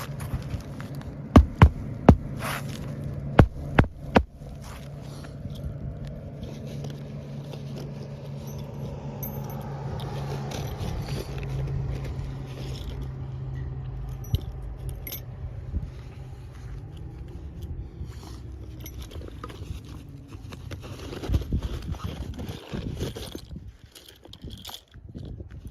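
Roofing hand tools working on an asphalt shingle: six sharp knocks in the first few seconds, then scraping and handling clicks, over a steady low hum that swells and fades around the middle like a passing vehicle.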